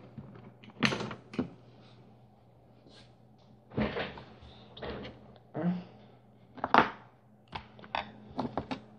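Irregular knocks, clatter and rustling from objects and small parts being handled on a workbench, about ten separate bumps, over a faint steady low hum.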